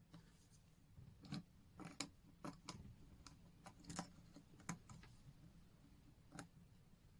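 Faint, irregular small clicks and taps of metal tools and parts while a new button-cell battery is fitted into a Seiko titanium perpetual calendar watch; about nine clicks over five seconds.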